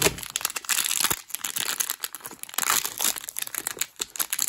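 Small packaging bag crinkling in the hands as it is opened, a dense run of irregular crackles.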